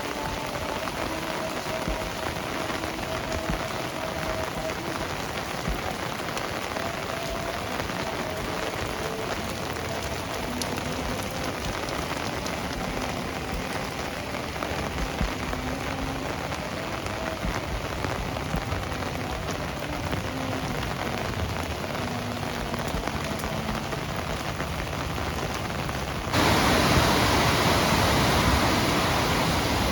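Heavy rain falling steadily, with a faint low hum under it. About 26 seconds in it gives way abruptly to a louder, even rush of water.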